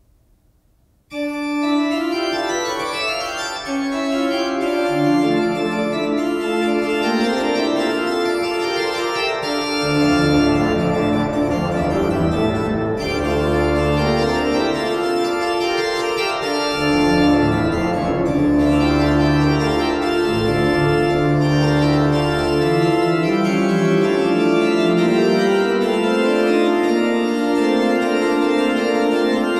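Pipe organ starting a piece with a sudden chord about a second in, then playing sustained full chords. Deep pedal bass notes come in a few seconds later and are heaviest in the middle.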